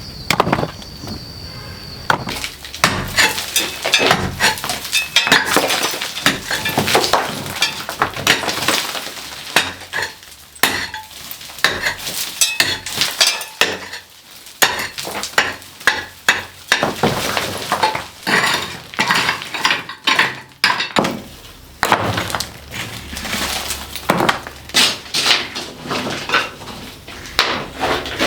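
Irregular knocking and clattering of hard objects being handled, often in quick runs of several strikes, with brief pauses.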